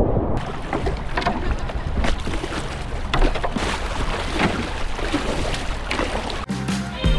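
Water splashing and trickling around a whitewater kayak's hull in shallow water, with irregular paddle-stroke splashes and drips. It opens with a brief muffled rush, and guitar music starts abruptly near the end.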